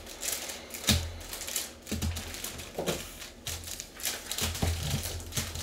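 Foil-wrapped trading card packs crinkling as they are handled and set down on a table, with several soft thumps as they land.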